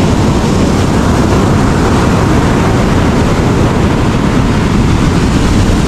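Ocean surf breaking and washing up the beach, with a steady rumble of wind on the microphone.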